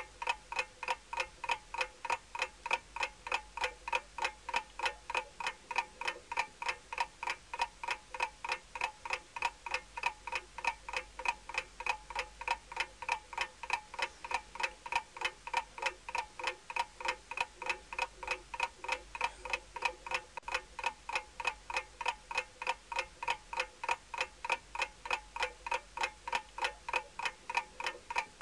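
Mechanical clock ticking steadily, about two ticks a second, each tick with a short metallic ring.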